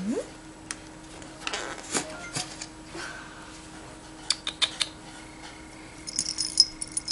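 A cat nosing and rustling at a plastic tub of dried catnip, with scattered short clicks and crinkles. About six seconds in, the cat rears up and a quick run of tinkling jingles comes from its collar.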